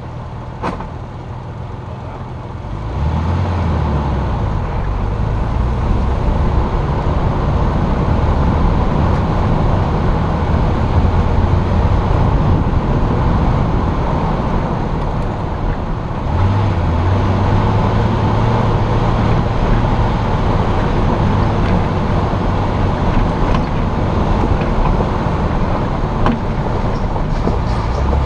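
Jeep driving up a mountain road, heard from its hood: engine hum and tyre and road noise. The engine grows louder about three seconds in, dips briefly midway, then pulls harder again.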